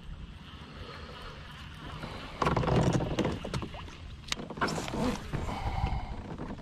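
Handling noise in a plastic fishing kayak: a burst of clattering and rustling starting about two and a half seconds in, then a few scattered sharp clicks and knocks as rod, reel and gear are moved around.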